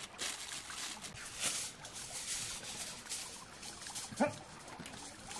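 Aluminium foil crinkling in hand over the trickle of a shallow stream, with one short dog bark about four seconds in.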